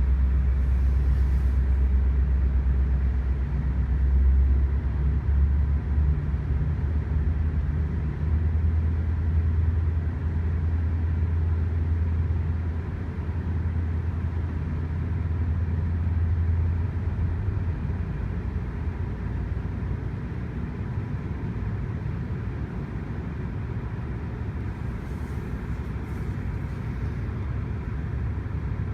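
GO Transit diesel locomotive's engine running with a deep, loud drone that steps up in pitch a couple of times as it works harder. The drone fades about two-thirds of the way through, leaving a steady rumble of the moving train.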